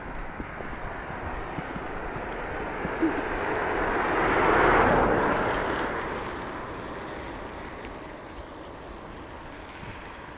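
A vehicle passing by: its noise grows to a peak about halfway through and then slowly fades away.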